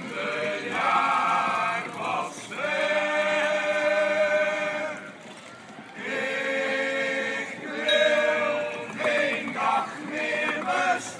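Group of men singing together as a choir, holding long sustained notes, with a short break of about a second near the middle.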